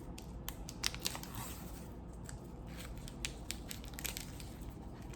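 Snack wrapper crinkling and tearing as it is opened by hand, an irregular scatter of sharp crackles.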